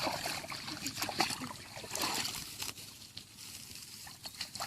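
Water splashing and sloshing in short, irregular bursts, busier in the first few seconds and then settling.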